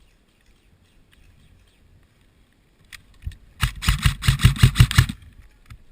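KWA CQR airsoft electric rifle firing a quick string of shots, about seven a second for roughly a second and a half, with a single shot just before it.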